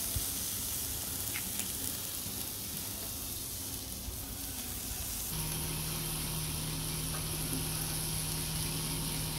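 Lamb kebab skewers sizzling over a charcoal grill, a steady hiss of fat and juices hitting the heat. About five seconds in, a steady low hum joins it.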